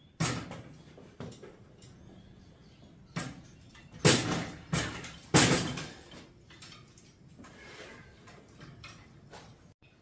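Irregular metal clunks and knocks from a light steel welding table and the angle-iron windmill crossbar clamped to it, as the bar is levered down with a big crescent wrench on its end and the table lifts and drops back. The loudest knocks come about four and five and a half seconds in.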